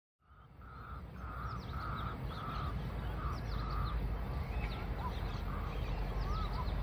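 A crow cawing in a quick run of about nine calls, roughly two a second, that stops about four seconds in. Small birds chirp throughout over a steady low rumble, and the sound fades in at the start.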